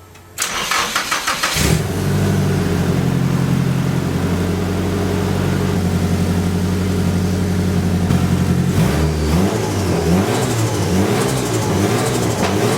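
Nissan SR20DET turbocharged four-cylinder cranked by the starter for about a second, catching and settling into a steady idle on its first start after a water pump and wastegate swap. From about nine seconds in, the engine speed rises and falls repeatedly.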